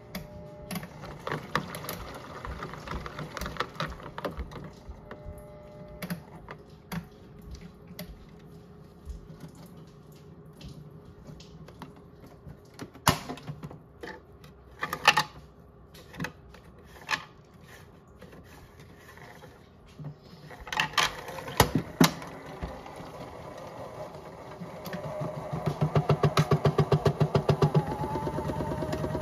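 Toy front-loading washing machine made up as a Miele, its small motor turning the drum with a plush turtle toy inside. Sharp clicks and knocks come as the door is opened and shut partway through. Near the end the drum speeds up, with a rapid rhythmic thumping of about five beats a second and a rising whine.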